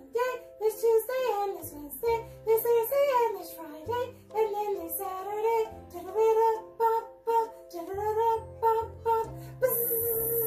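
Children's song playing: a child-like singing voice carries a melody in short phrases over a bass line.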